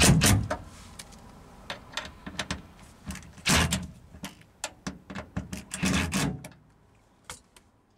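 Short bursts of a cordless drill/driver driving screws home through the jail-bar mounting brackets, three times, with clicks and knocks of handling in between. The sound fades out about six and a half seconds in.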